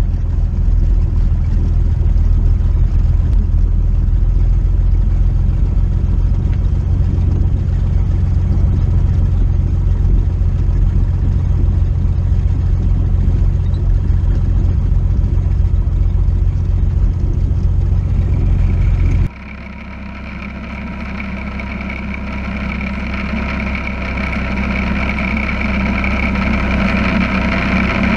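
Light single-engine plane's piston engine running at low power while taxiing, a steady deep rumble. About two-thirds of the way through it cuts abruptly to the higher, steadier engine-and-propeller drone heard inside the cabin, which grows gradually louder.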